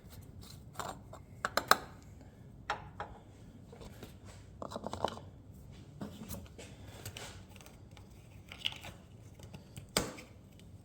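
Scattered clicks, taps and short scraping, rustling sounds of hands working with parts and plastic during an oil change, with a sharper knock near the end.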